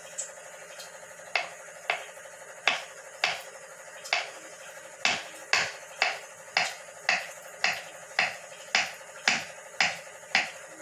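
Kitchen knife slicing a peeled banana on a wooden chopping board: sharp taps of the blade striking the board, a few scattered ones at first, then a steady run of about two a second.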